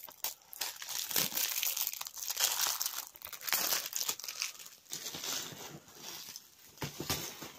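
Plastic shrink wrap being torn open and peeled off a DVD case: a long stretch of dense crinkling and crackling with sharp tearing sounds mixed in.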